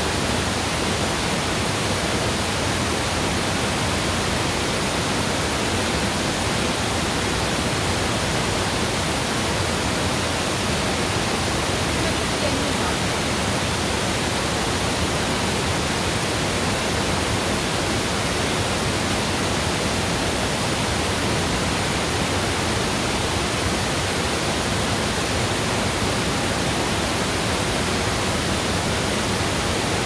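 Mountain waterfall: a steady, unbroken rush of falling water, even from deep to high pitches.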